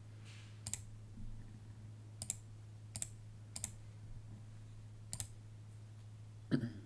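About six short, sharp computer mouse clicks, unevenly spaced, over a faint steady low hum.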